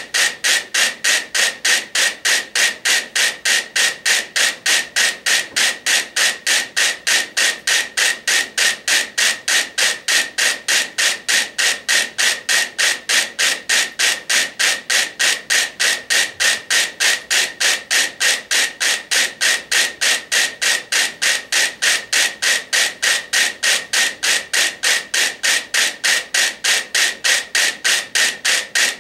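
A hundred mechanical pendulum metronomes ticking together in unison, about three sharp clicks a second; each tick lands as a single clean click because the metronomes have synchronised.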